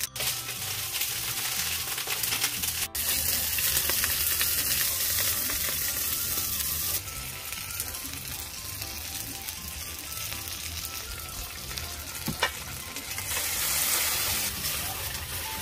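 Crayfish sizzling in hot oil in a nonstick frying pan, a steady crackling hiss that is louder for the first several seconds, then eases and swells again near the end.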